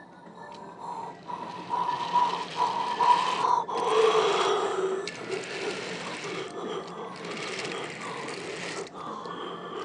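Electric model train running on plastic track, its small motor and gears getting louder as it comes close and passes, loudest about four seconds in, then running on steadily.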